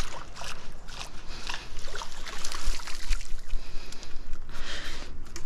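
A hooked fish splashing at the surface and water sloshing as it is drawn into a landing net, in irregular bursts.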